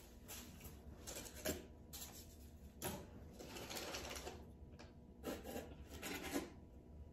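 Rustling and scraping of packing material and cardboard as a shipping box is unpacked by hand, with a few sharp clicks and knocks, the loudest about a second and a half in and again near three seconds.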